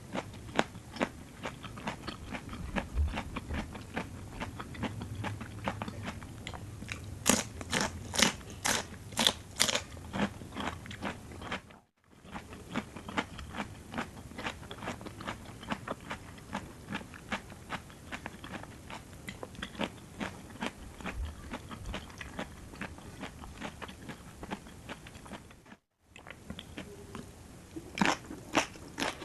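Close-miked crunching and chewing of a rice noodle salad with crisp raw vegetables. There are runs of louder, sharp bites about a third of the way in and again near the end, and two very brief cuts to silence.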